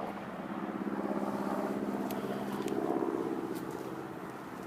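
A car engine running steadily, its hum swelling a little about three seconds in, with a few faint ticks.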